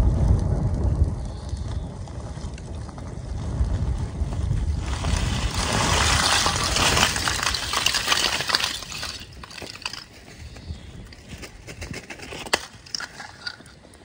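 Lumps of charcoal poured from a sack onto a burning brushwood fire, clattering and tumbling for several seconds, then settling with scattered clicks and crackles. A low rumble is heard at the start.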